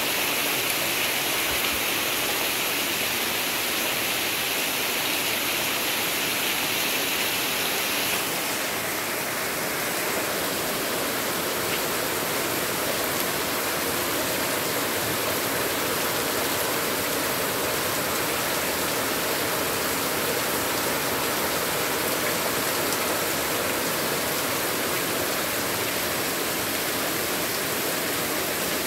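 Heavy rain pouring steadily, a dense even hiss. About eight seconds in, its higher sheen drops away and the downpour carries on just as strongly.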